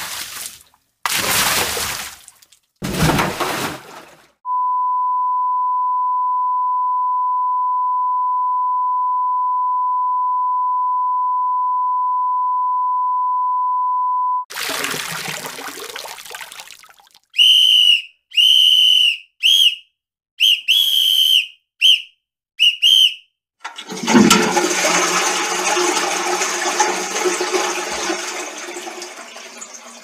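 A string of meme sound effects played back to back: three short noisy bursts, then a steady high beep lasting about ten seconds, a fading rush, about eight short high whistle toots, and finally a long rushing of water like a toilet flush that dies away near the end.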